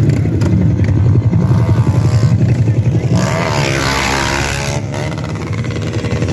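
Motorcycle engines running at high revs with a deep, pulsing rumble. About three seconds in, one engine is revved hard, its pitch rising and then falling back, before the rumble settles again.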